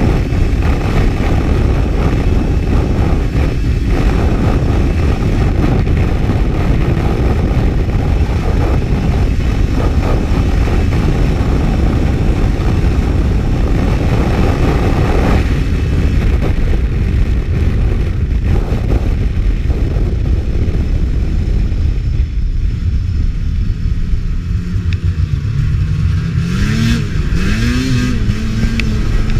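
Racing snowmobile running hard on lake ice, a loud steady din at speed. Near the end the din eases and the engine note rises and falls twice as it is revved.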